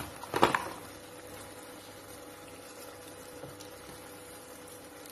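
Cubes of spiced beef cooking in a non-stick frying pan, a steady soft sizzle. A brief louder sound comes about half a second in.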